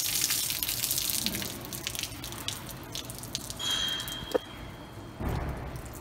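Flushing liquid running out of the open rear differential housing of a 2007 Ford Crown Victoria and splashing onto the shop floor, the stream thinning to scattered drips. A brief high whistle and a sharp click come about four seconds in.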